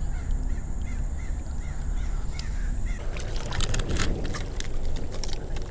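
A bird gives a quick series of short calls, about three a second, during the first two and a half seconds. After that comes a run of sharp clicks and handling noise as the screw cap is twisted on a small glass bottle.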